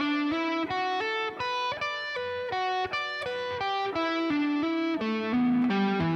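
Electric guitar playing a single-note triplet lick slowly, about three notes a second. It moves through A minor pentatonic, slides into B minor pentatonic, then into an E minor 7th arpeggio.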